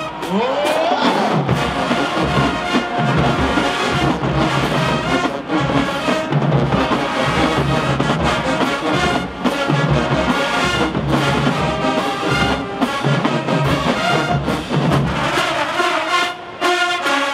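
Marching band playing a loud brass-heavy tune, trombones and trumpets over a steady drum beat.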